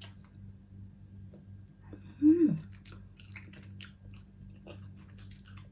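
A person chewing shrimp and rice with wet clicking, smacking mouth sounds. A short voiced hum of the mouth, the loudest sound here, comes about two seconds in.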